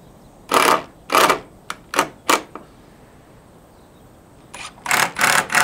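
Hitachi cordless power driver driving screws into a timber beam in short bursts, several in the first two and a half seconds and another cluster near the end, with a few sharp clicks between.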